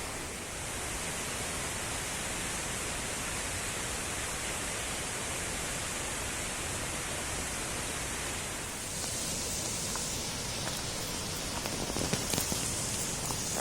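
Steady rushing of a mountain stream flowing down toward the Neer Garh waterfall, an even hiss of falling water. Its tone shifts about nine seconds in, and a few faint clicks come near the end.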